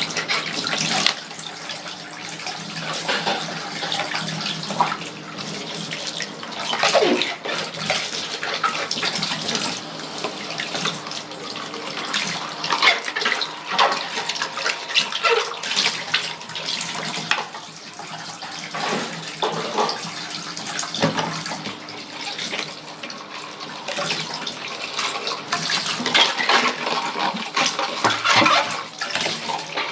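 Washing dishes at a sink: a tap running with splashing water and irregular clinks and knocks of crockery being handled.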